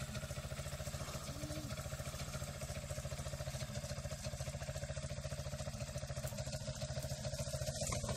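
Small quad bike's engine idling steadily with an even, rapid pulsing and no revving.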